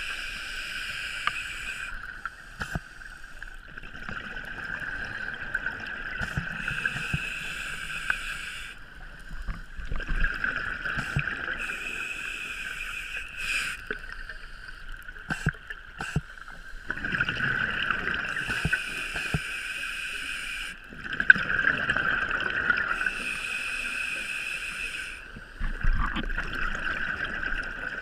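Scuba diver breathing through a regulator, heard underwater through a camera housing: a rushing hiss and bubbling that swells and fades in cycles of about four seconds, with a few sharp clicks and knocks.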